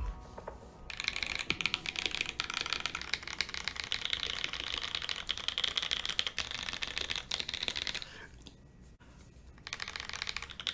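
Mechanical keyboard with Mode Designs Obscura linear switches on an FR4 plate, case foam fitted, being key-spammed: a dense, rapid clatter of many keys pressed at once. It starts about a second in, stops for a moment about three quarters of the way through, then resumes.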